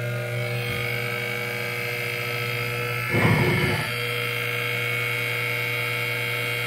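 2.25 HP DC treadmill motor from a ProForm 330X, driven by an MC60 speed controller at a moderate setting, running unloaded with its flywheel removed: a steady electric motor hum with several steady tones. A brief louder rustling noise about three seconds in.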